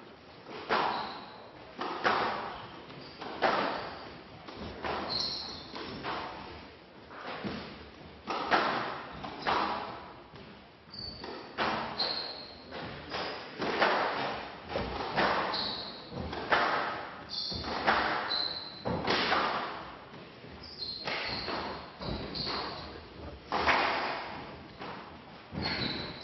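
Squash rally on a glass court: the ball is struck by rackets and hits the walls in sharp thuds about once a second, echoing in a large hall, with short high squeaks of court shoes on the wooden floor in between.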